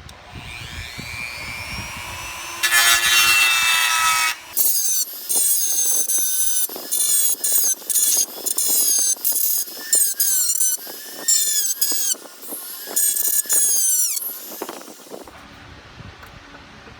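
Power drill cutting through the rivets of a steel toolbox, the bit squealing shrilly against the metal. It runs steadily for a couple of seconds, then in many short stop-start bursts, and stops a couple of seconds before the end.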